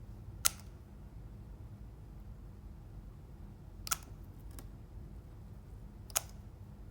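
Slime being worked by hand, giving a few sharp, short clicks or pops spaced several seconds apart, over a low steady hum.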